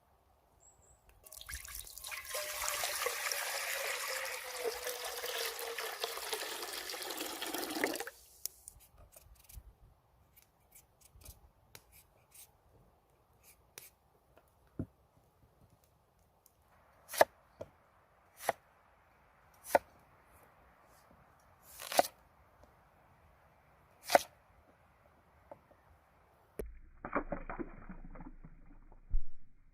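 Water pouring for about seven seconds, then a few faint clicks and about five sharp knocks a second or two apart, and a short rustle near the end.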